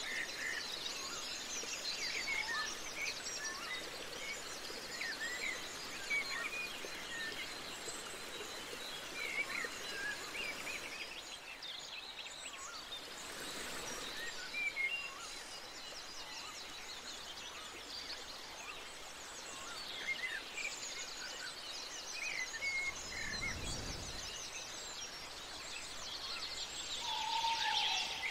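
Many small birds chirping and twittering over a steady outdoor hiss, with a brief low rumble about three quarters of the way through.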